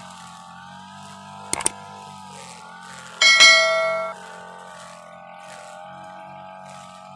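UM328 brush cutter engine running steadily under a subscribe-button overlay's sound effects. A quick double click comes about a second and a half in, then a bright bell ding near the middle rings for about a second.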